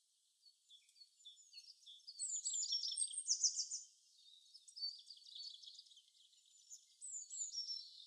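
Small songbirds singing and calling: thin, high-pitched chirps and quick trills, loudest in a dense burst from about two to four seconds in, with another short falling phrase near the end.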